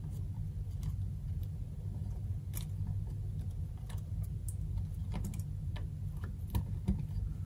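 A few faint, scattered clicks of a temperature sensor's wire leads being pushed into the contacts of a plastic solderless breadboard, over a steady low hum.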